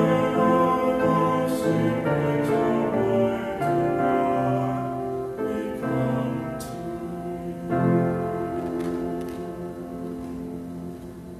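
A slow, simple chant sung with piano accompaniment, the notes held long; a last long chord fades away near the end.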